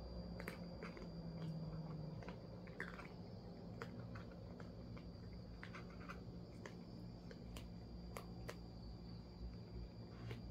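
Two cats eating from a plastic food bowl: scattered crisp chewing clicks, irregular and faint.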